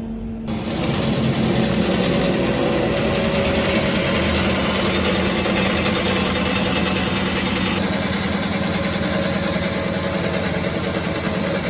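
Diamond-1000T beam band sawing machine running steadily, a loud, even mechanical noise with a low hum that starts suddenly about half a second in.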